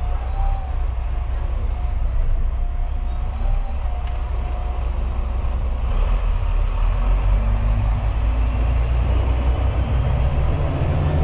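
London double-decker bus running, its engine rumbling steadily, with a few brief high squeaks in the first seconds. About six seconds in the rumble grows and a faint whine rises in pitch as the bus pulls away and speeds up.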